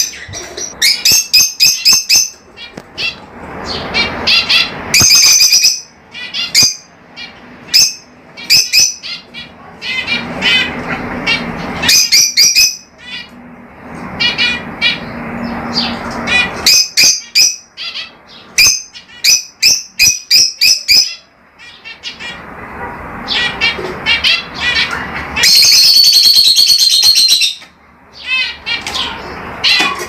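Lovebirds calling: quick runs of sharp, high-pitched chirps and squawks, with a longer unbroken stretch of shrill chattering a little before the end.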